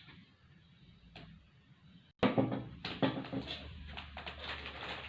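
Faint room tone, then about two seconds in an abrupt jump to rustling and clattering handling noise as objects are moved about.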